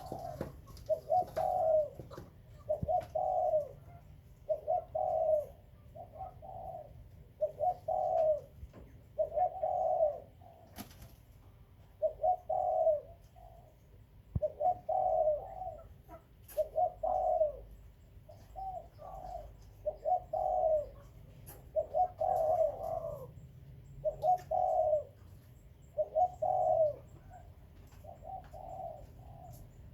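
Spotted dove cooing: short coo phrases repeated over and over, roughly every one and a half seconds.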